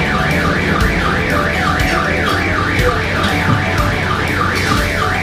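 An electronic alarm siren warbling quickly up and down, about three to four sweeps a second.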